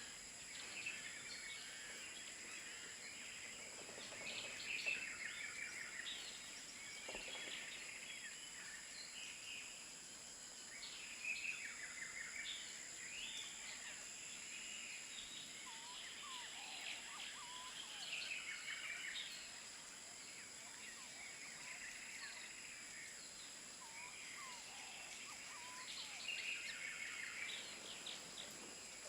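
Birds chirping in repeated short bursts over a steady high-pitched insect hum.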